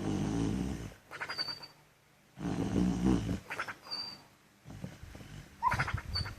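Sleeping beagle snoring and giving muffled sleep barks. There are three rounds, about two and a half seconds apart, each a loud, low snore followed by a string of short huffs with a brief high whistle.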